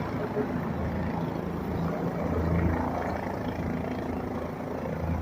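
Steady, low, humming engine noise over a rumble, with no break or change.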